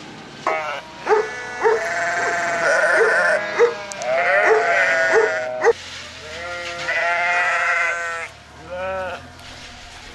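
Sheep bleating: several long, wavering bleats one after another, fading out about nine seconds in.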